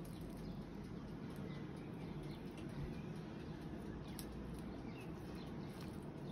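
Faint scraping and clicking of a metal spoon and knife cutting through the crisp baked lavash crust of shah plov in a metal tray, over a low steady hum.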